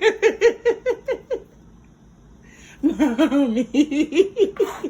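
A person laughing in two runs of quick, high-pitched ha-ha pulses; the second run starts about three seconds in.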